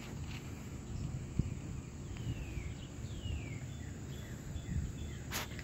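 Outdoor background with a steady low rumble, and a bird giving several short falling calls about two to three seconds in. A single sharp click comes near the end.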